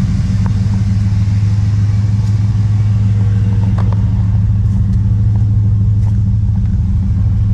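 1999 Dodge pickup truck's engine idling steadily, a constant low hum with no revving.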